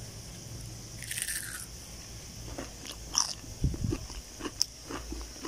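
Crunching of a person biting into and chewing a crispy fried onion ring with a breadcrumb coating: a crisp bite about a second in, then a run of sharp crunches through the second half.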